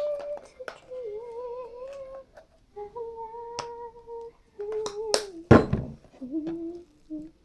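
A person humming a wavering tune in a few held notes, with sharp clicks and taps. A loud slap or thump comes about five and a half seconds in.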